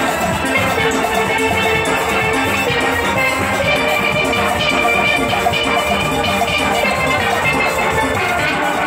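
Live steel band music: steel pans playing a bright, rhythmic melody over a steady drum beat.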